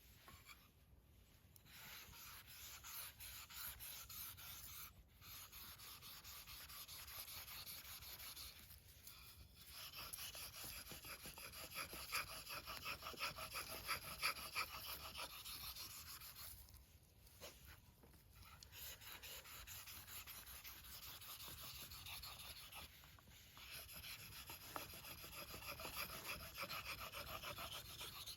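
A nata (Japanese hatchet) blade being stroked back and forth on a whetstone: fast, continuous rasping strokes in long runs, broken by a few short pauses.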